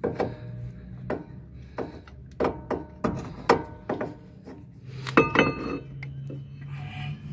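Metal clinks and knocks of a Fiat Strada's front brake caliper and brake pads being handled as the outer pad is worked loose: about ten irregular clinks, with a louder cluster that rings briefly about five seconds in.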